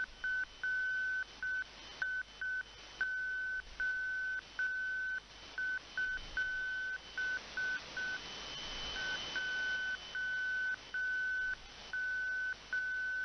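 Slow Morse code (CW) from a shortwave propagation beacon, heard through an online SDR receiver: a single steady tone keyed on and off in dots and dashes over a constant hiss of static. The static swells briefly near the middle, during a short gap in the keying.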